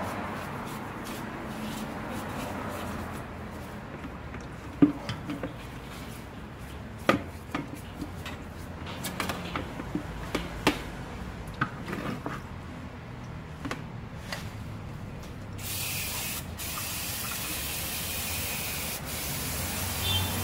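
Scattered light clicks and rubbing while the oily rear brake backing plate of a Kia Bongo 3 is scrubbed, then, about three-quarters of the way in, a steady hiss as a jet of cleaner spray washes the plate.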